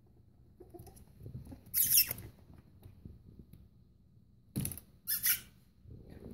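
A tiny puppy scrambling over a plush dog bed: a few short, high squeaks and scratchy rustles, with a knock just before the last pair.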